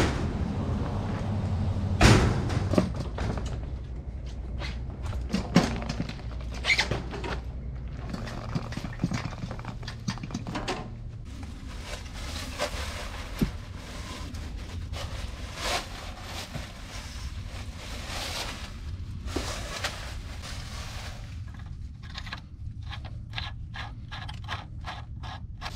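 Footsteps over leaf-strewn ground with scattered knocks and scrapes as a hose is handled. A low rumble stops about eleven seconds in, and a quick run of clicks, about three a second, comes near the end.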